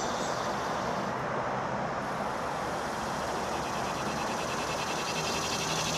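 Steady hiss and rumble of distant road traffic. Insects begin chirping faintly near the end.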